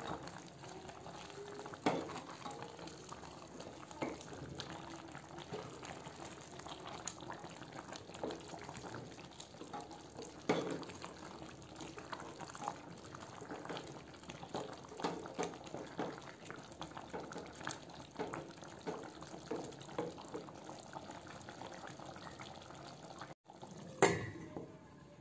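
Chicken pieces simmering in a sauce in a stainless steel pot, the liquid bubbling steadily while a spoon stirs them and knocks against the pot now and then. A louder knock comes near the end.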